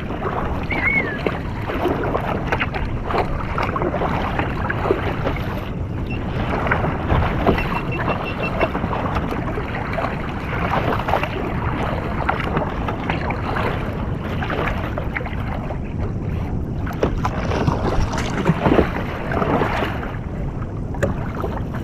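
Water splashing and sloshing against a fishing kayak's hull as it moves across the swell, with wind buffeting the microphone.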